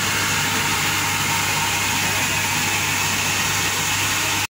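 Steady hiss with a low hum underneath from a steam locomotive standing at the platform, cutting off abruptly near the end.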